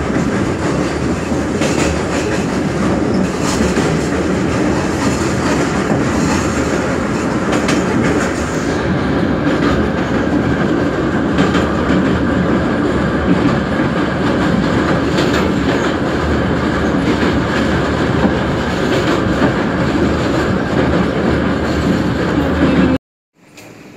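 Metro train running at speed, heard from inside the carriage: a steady rumble of wheels on rails with occasional clacks. It cuts off abruptly near the end, leaving a much quieter background.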